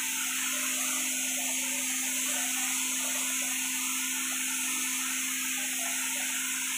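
Gravity-feed spray gun spraying paint onto a wall, a steady hiss of compressed air and atomised paint over a low steady hum.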